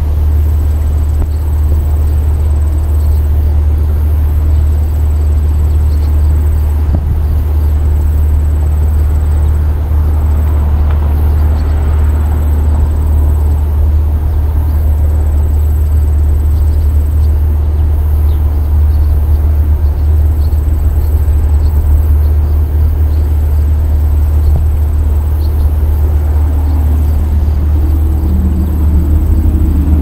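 A loud, steady low rumble throughout, with faint humming tones joining in near the end. No bird calls stand out.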